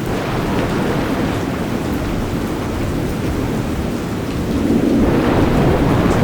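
Steady rain with a low rumble of thunder that swells about four and a half seconds in.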